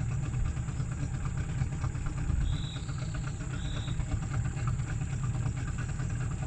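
Small boat's outboard motor running steadily while the boat travels between fishing spots, a continuous low engine sound.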